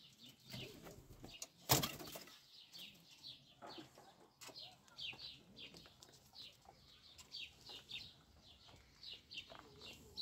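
Rapid run of short, high bird chirps repeating throughout, with a sharp knock about two seconds in and a softer click just after four seconds.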